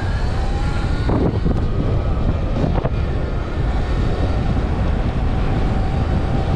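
Sur Ron electric dirt bike's motor whining as it pulls away, the whine rising in pitch at first and then holding steady, under heavy wind rumble on the microphone.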